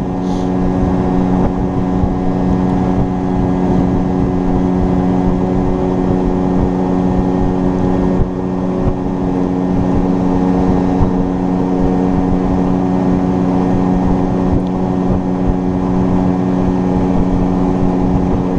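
A fishing boat's motor running at a steady speed with the boat under way, its engine tone unchanging throughout.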